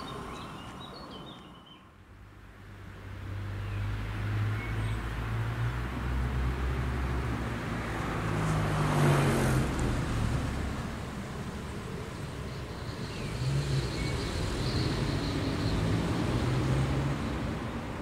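A train crossing a high concrete viaduct: a low rumble that swells to its loudest about halfway through and then eases, with a second swell near the end.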